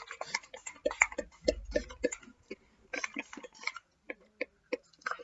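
A pump spray bottle spritzing hair again and again close to the microphone: quick, irregular clicks and short hisses, several a second, thinning out over the last second or so.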